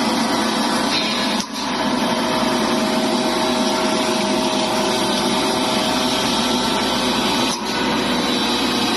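Herb and spice grinding machine running steadily, with a short dip in level about one and a half seconds in and again near the end.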